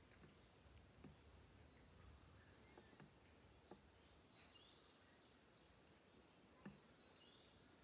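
Near silence of the forest: a faint, steady high-pitched insect drone, with a brief run of faint bird chirps about halfway through and a few soft ticks.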